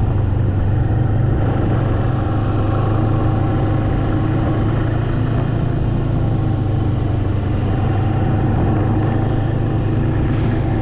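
Snowmobile engine running at a steady cruising speed, heard from the rider's seat.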